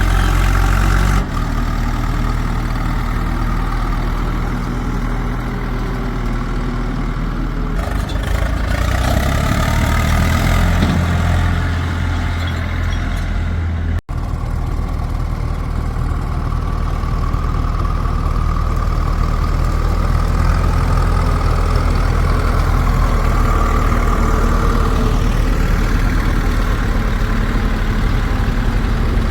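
Diesel engine of heavy machinery running steadily at low revs. The sound changes about a second in and breaks off for an instant about halfway through, like an edit cut.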